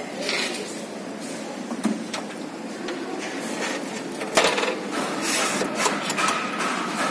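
Glass pane of an Ilve Majestic oven door being lifted and shifted in its metal door frame: scattered clinks, scrapes and rubbing, with a sharp knock about four seconds in.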